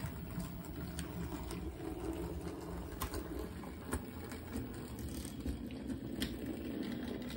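Model steam locomotive's electric motor and gearing whirring steadily as it runs in reverse along the track under DCC automation, with a few faint clicks along the way.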